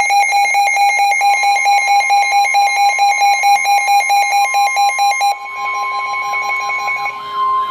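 Emergency Alert System attention signal: a loud, steady two-tone alarm, with a fast flutter that stops about five seconds in while the tones carry on. It announces a severe thunderstorm warning.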